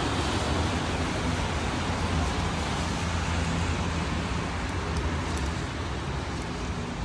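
Steady road noise of a car driving: a low rumble under an even hiss.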